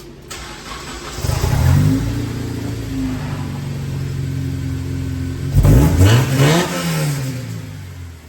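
Honda Accord Euro CL9's K24 four-cylinder engine cranking for about a second, catching and flaring up, then settling to idle on a Haltech Elite 1500 aftermarket ECU. About five and a half seconds in, the throttle is blipped and the revs rise and fall before the engine returns to idle.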